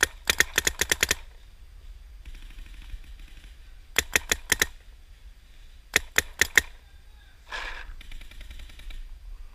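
Paintball marker firing in rapid strings of sharp pops: about eight shots in the first second, then two quicker bursts of four around four and six seconds in. A brief scuff about seven and a half seconds in.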